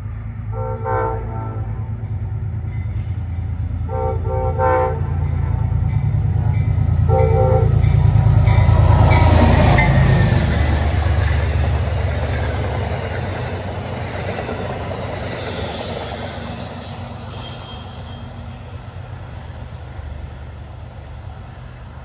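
Amtrak passenger train led by a P32AC-DM locomotive sounding its horn in three separate blasts as it approaches. The train then passes close by, loudest about nine seconds in, its wheels clattering on the rails, and the noise fades gradually as it moves away.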